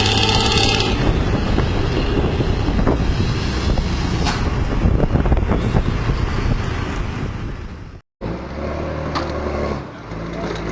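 Intercity bus diesel engine running loud through an aftermarket racing exhaust with a noisy, tinny, snoring note. About eight seconds in the sound cuts out briefly and picks up again on a steadier engine note.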